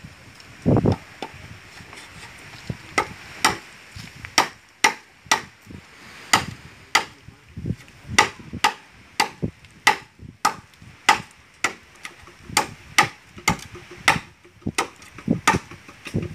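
A blade chopping into bamboo poles by hand: a long run of sharp, separate strikes, uneven at roughly one or two a second.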